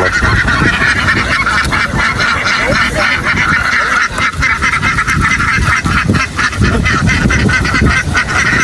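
A large flock of domestic ducks quacking together in a dense, continuous chorus of overlapping calls.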